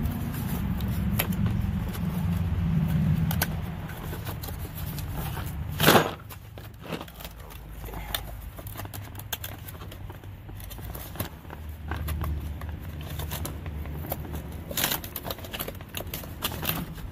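Cardboard box and plastic tool case being handled and pulled apart, with scraping, crackling and scattered knocks; a sharp knock about six seconds in is the loudest. A low rumble runs under the first few seconds and again later.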